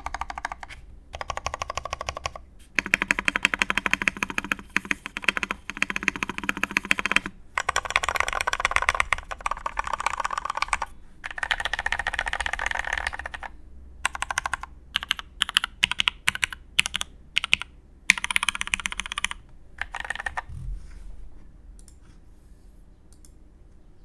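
Typing on a custom mechanical keyboard with lubed vintage Cherry MX Black linear switches, an aluminium plate and Cherry G80-3000 keycaps. Fast, dense runs of keystrokes give way to slower, separate presses, and the typing stops a few seconds before the end.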